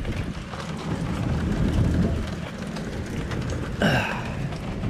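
Heavy rain and hail striking a wooden deck, a dense hiss full of small hits. A short, louder sound with a falling pitch cuts in about four seconds in.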